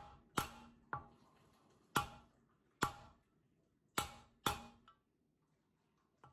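Mallet tapping a sealed ball bearing into the cast iron bearing housing of a washing machine's drum spider: about seven sharp, light knocks at uneven intervals, each with a brief metallic ring, as the interference-fit bearing is driven toward its seat.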